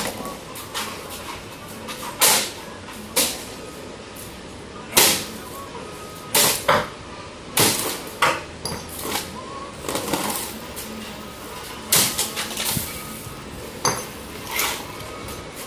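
Hammer blows smashing plastic reels of electrical wire: about seventeen sharp cracks and knocks, irregularly spaced, roughly one a second.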